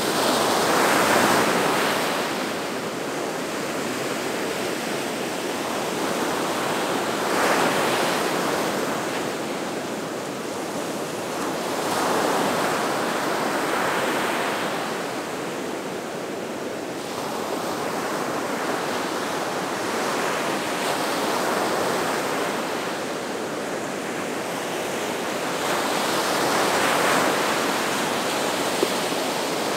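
Gulf of Mexico surf: waves breaking and washing ashore in a steady rush that swells about every five or six seconds.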